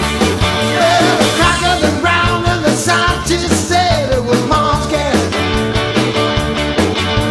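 Background music: an upbeat rock-and-roll or ska-style track with a steady beat and a gliding lead line.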